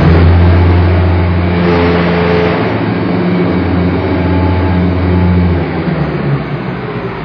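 Masa 5000 block-making machine running with a loud, steady low hum that starts suddenly and dies away near the end, over general machinery noise.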